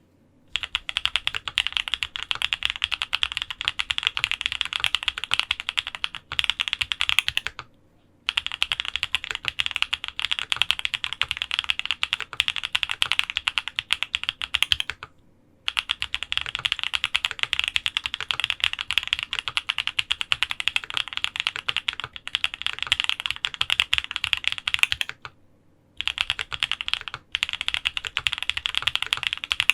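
Fast typing on a Mode65 mechanical keyboard with lubed TTC Holy Panda tactile switches on a POM plate under GMK keycaps: dense, rapid keystrokes in long runs. Typing breaks off briefly about 8, 15 and 25 seconds in.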